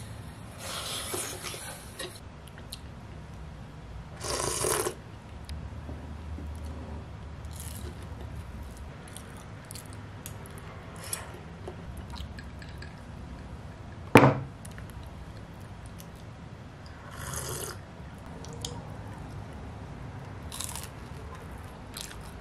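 A person eating kimchi stew, with short bursts of slurping and chewing and a few light utensil scrapes. One sharp knock about two-thirds of the way through is the loudest sound.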